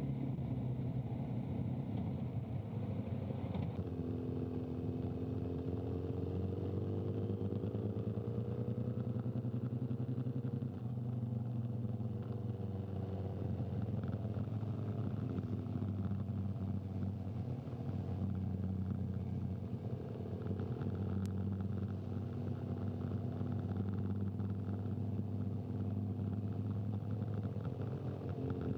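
Motorcycle engine running at a steady low speed, its pitch rising and falling a few times as the throttle changes.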